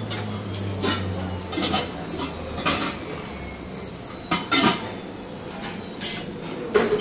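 Counter-work clatter: about six sharp knocks and clacks of utensils and machine parts, over a low hum that fades after about two seconds.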